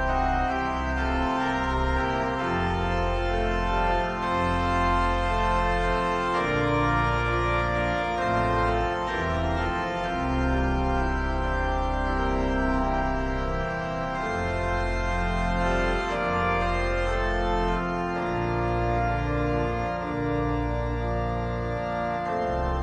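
Organ music: slow, sustained chords that change every second or two over deep held bass notes.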